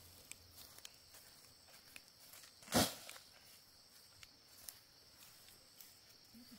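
Steady, high insect chirring, with scattered light ticks and crackles and one louder, sharp knock nearly three seconds in.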